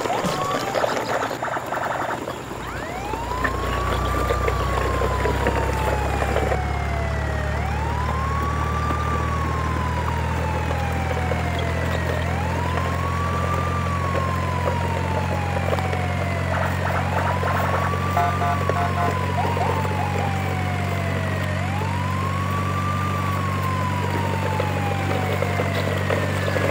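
A siren wailing over a steady low engine drone: each wail sweeps up quickly and then falls slowly, repeating about every four and a half seconds. The drone comes in about two and a half seconds in and holds steady.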